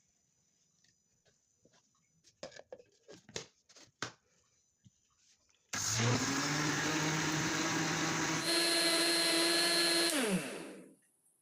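Electric kitchen blender: a few light clicks and knocks, then the motor switches on about halfway through and runs steadily. It steps up in pitch a little later and winds down with a falling pitch when switched off near the end.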